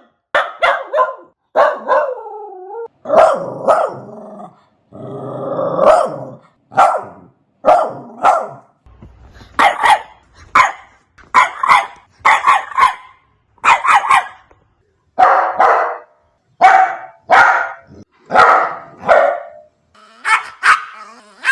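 Puppies barking: a long run of short barks, roughly one or two a second. About two seconds in there is a drawn-out whine that falls in pitch, and around five seconds a longer, rougher sound.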